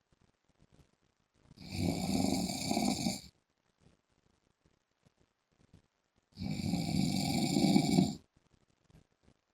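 A man snoring loudly and regularly: two snores about five seconds apart, each lasting about two seconds, with quiet in between.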